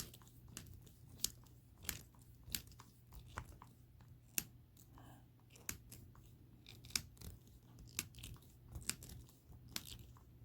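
Irregular light clicks and scrapes of a screwdriver and small parts being handled while the air gun's grip and cover are put back together, over a low steady hum.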